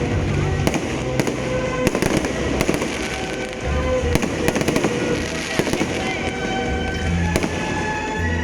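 Fireworks going off in rapid succession: many sharp bangs and crackles close together, over a dense, steady background of noise.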